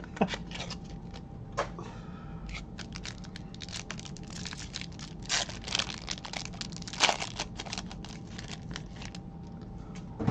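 A trading-card pack wrapper being torn open and crinkled, giving a rapid string of small crackles and clicks with a few louder snaps.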